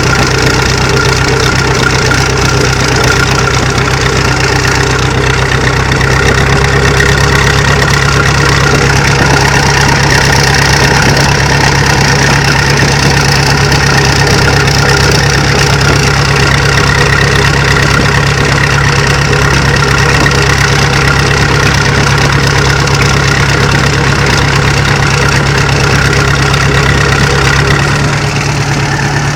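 Massey Ferguson 130 tractor's four-cylinder diesel engine running steadily as the tractor is driven. The engine note shifts about six seconds in and drops a little near the end.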